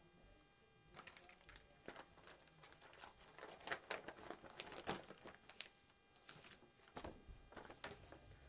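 Faint crinkling and rustling of a clear plastic bag in quick, irregular bursts as a folded cloth suit is slid into it and smoothed flat, the busiest stretch around the middle.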